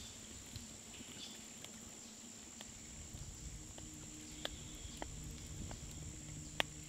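Wood fire burning in a small folding camp stove, giving sparse, irregular crackles and ticks about once a second, with a soft low rumble underneath from about three seconds in.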